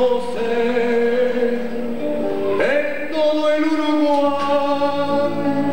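Music with singing: long held sung notes, with a new note starting about two and a half seconds in.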